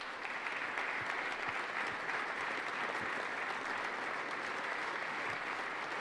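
Audience of legislators applauding in a large chamber, steady clapping that swells in the first moment and holds.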